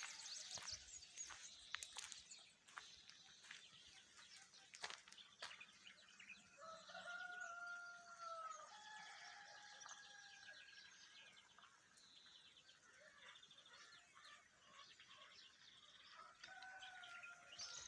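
Free-range rooster crowing faintly: one long drawn-out crow in the middle, and another starting near the end. Small birds chirp high in the background.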